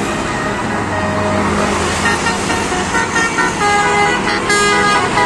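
Bus basuri telolet horn playing a quick tune of short notes stepping up and down in pitch, starting about two seconds in, over engine and traffic noise.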